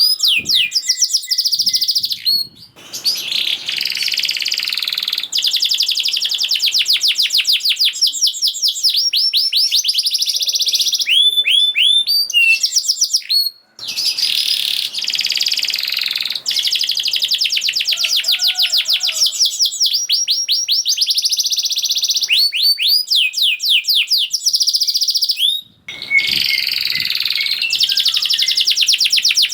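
Domestic canary singing long, fast, tightly packed trills and rolls, with a few short pauses between phrases.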